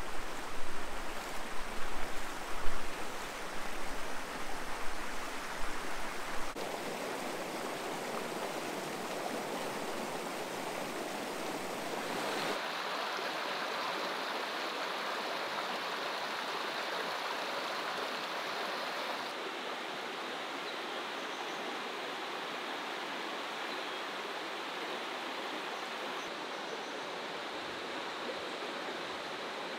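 Shallow, clear river running over rocks and pebbles: a steady rush of flowing water. It is louder and uneven for the first several seconds, then settles, shifting in tone every several seconds.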